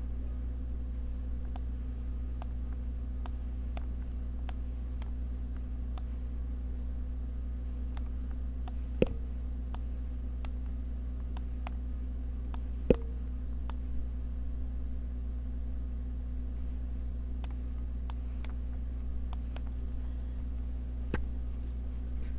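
Computer mouse clicking every second or so, two clicks louder than the rest, over a steady low electrical hum.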